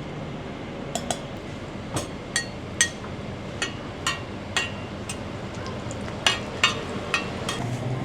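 A metal spatula clinking against a griddle as a street vendor cooks a banana roti: about a dozen sharp, irregular clinks, the loudest near the end, over steady street background noise.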